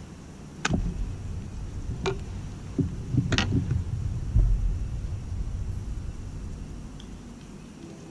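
Handling noise as a largemouth bass is held and turned over in a kayak: a few sharp clicks and knocks in the first few seconds and a heavier thump about four seconds in, over a low rumble.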